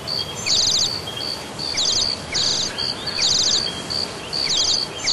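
Nature ambience of high, rapid chirping calls from birds and insects. The chirps come in short trills roughly once a second over a steady hiss.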